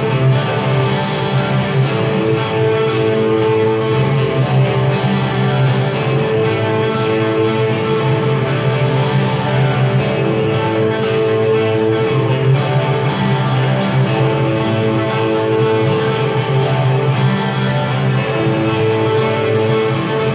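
Rock band music with layered guitars, bass and drums, with an electric guitar played along with it, steady and loud throughout.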